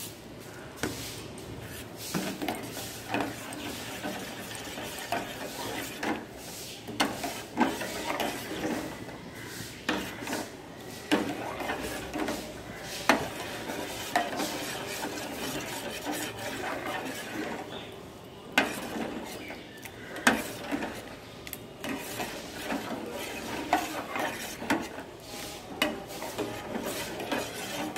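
Metal spoon stirring thick payesh (milk and rice pudding) in a metal pot, scraping and clinking against the pot's sides and bottom in irregular strokes.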